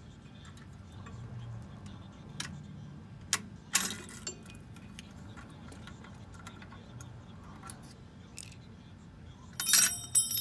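Scattered clicks from a drum brake's star-wheel adjuster being turned back with a flat-blade screwdriver to pull the brake shoes in. Near the end comes a loud metallic clank that rings briefly.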